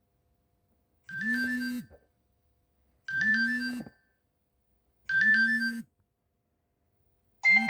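Nokia 6070 mobile phone ringtone: the same short phrase of a few high notes over a low tone that slides up and holds, under a second long, played three times about two seconds apart. Just before the end a different, faster ringtone starts.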